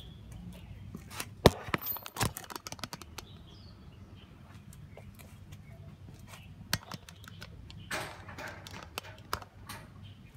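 Handling noises from fitting a portable cordless tyre inflator's hose to a bicycle tyre valve: a few sharp clicks and knocks, loudest about one and a half seconds in, another near the middle and a short scrape near the end. A steady low hum runs underneath. The pump's motor is not running.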